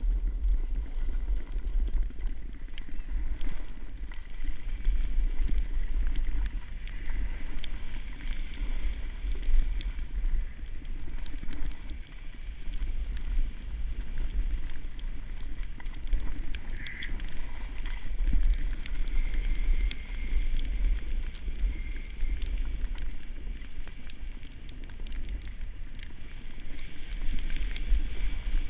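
Wind buffeting an action camera's microphone while sliding downhill on snow: a continuous low rumble under an uneven hiss that swells and eases.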